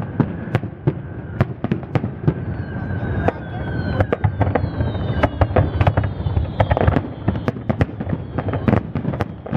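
Aerial firework shells bursting in quick succession over the sea, a rapid run of sharp bangs several times a second. High whistles fall slowly in pitch through the middle.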